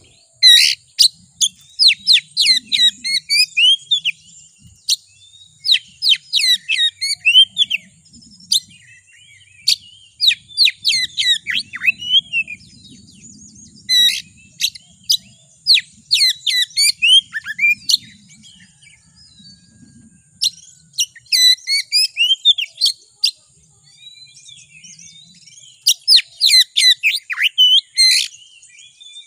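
Oriental magpie-robin (kacer) singing fast, excited phrases of sharp whistles, chips and slurred notes, each phrase a second or two long with short pauses between; a fired-up song of the kind played as a lure to provoke other magpie-robins into singing.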